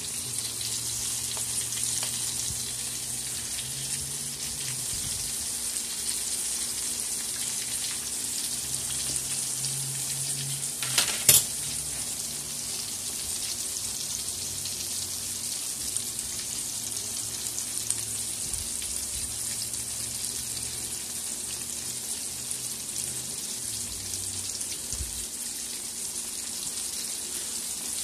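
Flour-dredged sardines shallow-frying in hot oil: a steady sizzle, with a brief sharp knock about eleven seconds in.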